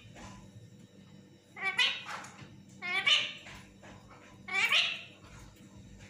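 Lutino (yellow) Indian ringneck parakeet calling three times, short high calls about a second apart.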